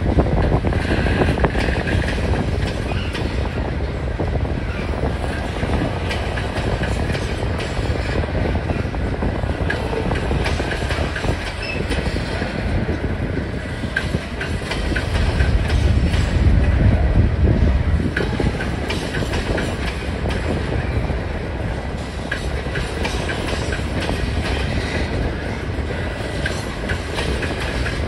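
Freight train of covered hopper cars rolling past at trackside: a steady rumble of cars and trucks, with the wheels clicking over rail joints.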